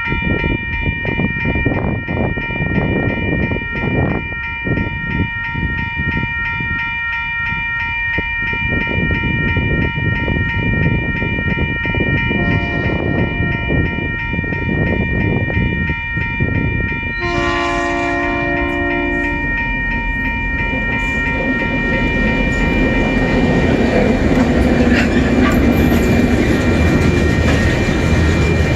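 Level crossing warning bells ring steadily as a TasRail coal train approaches. The locomotive's horn sounds briefly about twelve seconds in, then again louder for about two seconds a few seconds later. After that, the diesel locomotives' engines and wagons rumble past, growing louder toward the end.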